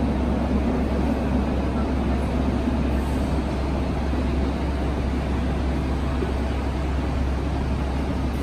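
Bucharest Metro train giving a steady low rumble and hum at the platform, even in level throughout.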